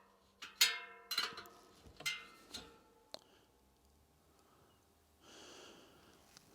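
Spoke key and spokes of a mountain-bike wheel being trued: about six sharp metallic ticks with a short ring in the first couple of seconds, then a single click. A soft hiss follows near the end.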